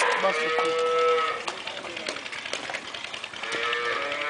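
Dairy cattle mooing: one long moo fading out about a second in, then a second moo starting near the end.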